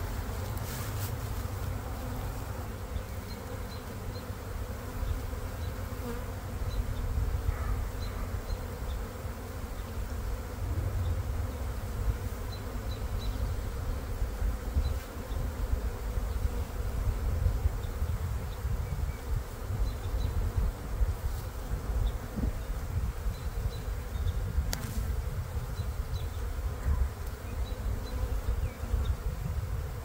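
Steady buzzing drone of a honeybee swarm, many bees in flight around the hive box and the tree.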